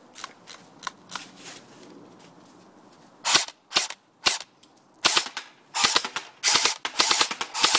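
Full-metal M4 airsoft electric gun firing, battery-powered: a few light clicks at first, then from about three seconds in single shots and short rapid bursts.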